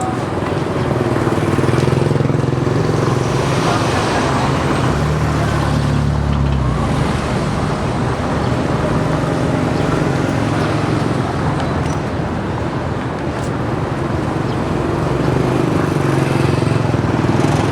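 Street traffic: motor vehicle engines running and passing, with a heavy low engine hum strongest from about one to seven seconds in.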